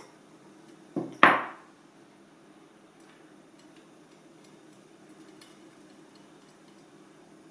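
A small metal object clattering on a hard surface: two sharp knocks a quarter second apart, the second louder with a brief ring, then a couple of faint ticks.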